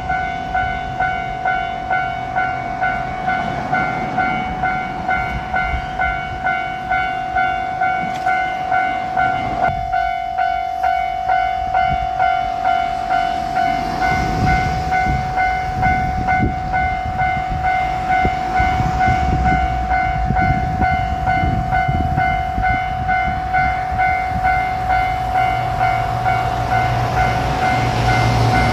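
Japanese level crossing warning bell ringing 'kan-kan', an even electronic ding repeating more than once a second. From about halfway, the low rumble and wheel clatter of a JR Shikoku 2700 series diesel limited express grows underneath as it reaches and passes the crossing.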